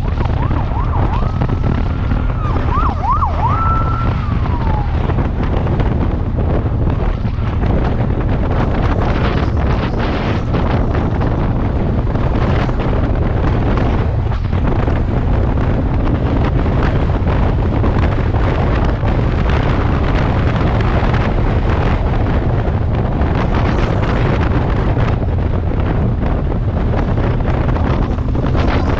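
Heavy wind rush and road noise on a motorcycle-mounted camera at speed. For the first few seconds a siren wails, warbles quickly, then falls in pitch and fades.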